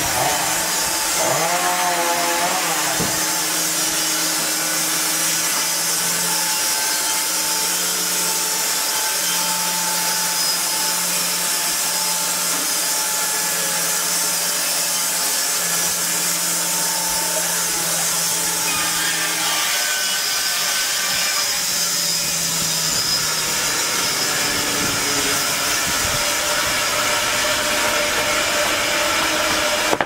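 Triumph 900 Premium (Altai-3 Prof 900) band sawmill, with a 15 kW electric drive, sawing through a log as the saw head travels along it: a steady hum with a few held pitches over the noise of the blade in the wood. About twenty seconds in the sound changes as the cut finishes and the head runs back along the rails.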